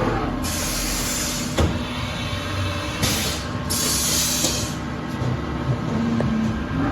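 Three short blasts of hissing compressed air over the steady hum of a running Haas VF-2SSYT CNC vertical machining center, with a sharp click as the first blast cuts off.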